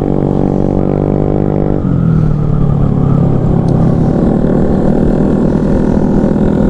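Motorcycle engine running on the road, heard from the riding bike with wind noise. It starts as a steady drone and turns rougher and a little louder about two seconds in.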